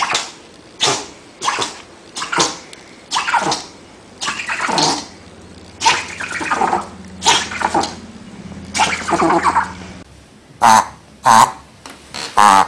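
A small dog snorting or sneezing in short noisy bursts, one every half second to a second. After about ten seconds a small dog gives a few short, high-pitched yips.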